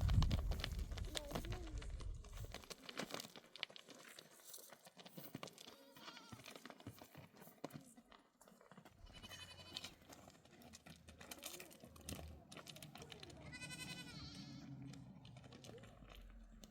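Livestock bleating: two high, wavering calls, about nine and thirteen seconds in, among scattered knocks and shuffling, with a loud clatter right at the start.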